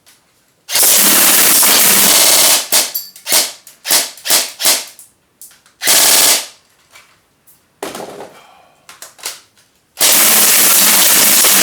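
Gas airsoft gun firing full auto in bursts: a long burst about a second in, a string of short bursts through the middle, and another long burst near the end.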